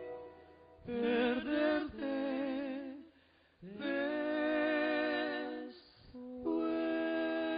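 Male voice singing slow, long held notes with vibrato, in three phrases with short breaks between, the closing phrases layered with other parts in harmony.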